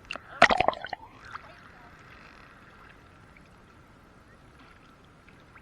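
Sea water splashing right against the phone's microphone for about a second, then a faint steady wash of the sea.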